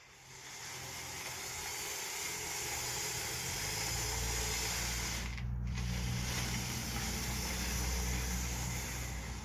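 Steady hiss from the RC construction machines at work, with a low motor hum that builds in about three and a half seconds in and holds steady.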